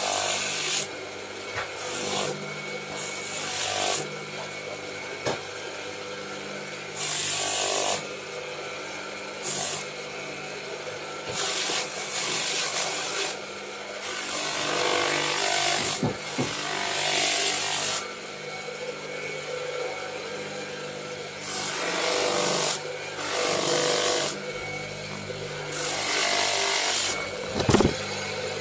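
Spindle sander motor running with a steady hum while a small workpiece is pressed against the spinning sanding drum in repeated passes, each of a second or two, giving a loud scratchy hiss. A sharp knock near the end.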